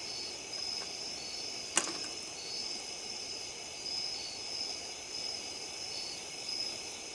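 Night insects, crickets, chirping steadily, with short high chirps repeating over a continuous trill. A single sharp click sounds about two seconds in.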